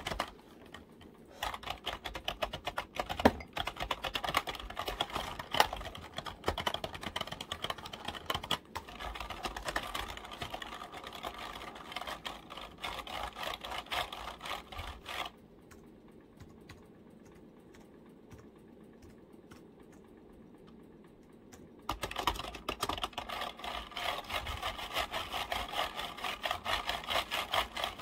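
Fast tapping on a computer keyboard: a dense run of key clicks that thins to a few faint taps for several seconds past the middle, then picks up again.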